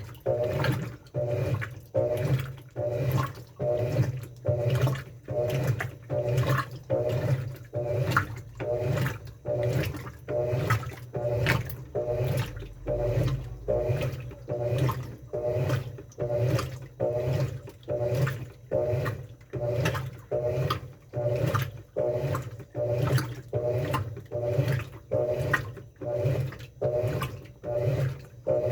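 Washing machine churning its wash water back and forth, with a motor hum and a slosh on each stroke in a steady rhythm of about three strokes every two seconds.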